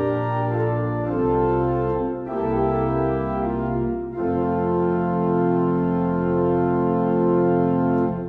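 Organ playing slow sustained chords, the last one held for about four seconds and starting to fade away at the end.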